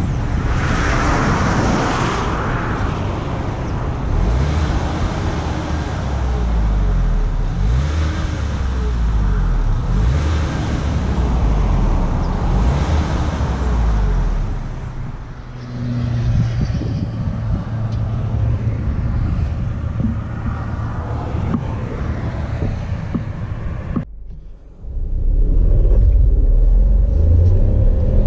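The 2019 MG ZS 1.0 TGI's small turbocharged three-cylinder petrol engine, heard at the exhaust, running with its pitch rising and falling several times, then settling steadier. After a brief break near the end, the engine sound returns louder and climbing as the car starts a full-throttle acceleration run.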